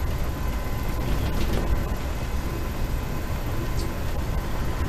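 Amtrak Acela Express train in motion, heard from inside the passenger car: a steady low rumble from the wheels and running gear, with a faint steady hum above it and a few light ticks.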